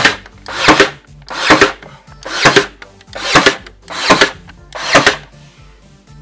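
Ryobi 18V ONE+ cordless nailer driving nails into wooden shoe moulding: seven shots in quick succession, about one a second, each a short whirr ending in a sharp crack.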